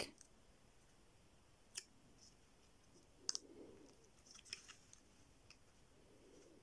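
Fingernail picking at and peeling the protective plastic film inside an opened PinePhone's back: a few faint, scattered clicks, with a double click about three seconds in.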